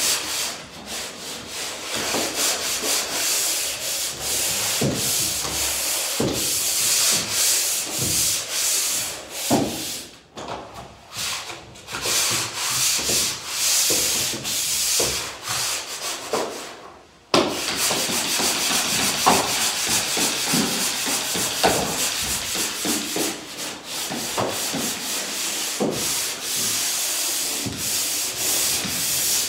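Pole sander rasping back and forth over a wall in steady strokes, stopping briefly twice near the middle.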